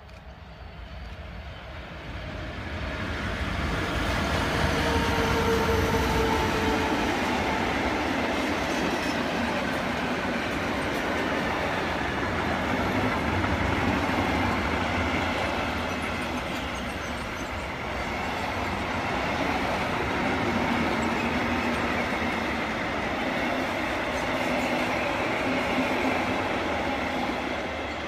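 A train running past on the railway line: the noise of wheels on rail builds over the first few seconds, holds steady for about twenty seconds, and eases near the end.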